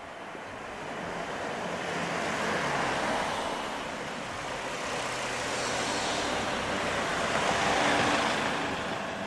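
Two road vehicles passing close by one after the other, their tyre and engine noise swelling and fading; the second, about eight seconds in, is the louder.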